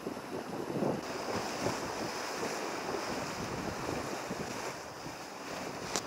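Wind buffeting the microphone over the rushing hiss of water along a sailboat's hull as it sails fast in strong wind, the noise surging irregularly with the gusts.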